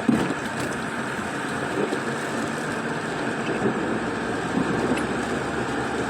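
Heavy rain drumming on a moving car, heard from inside the cabin as a steady rushing noise, with tyres on the wet road.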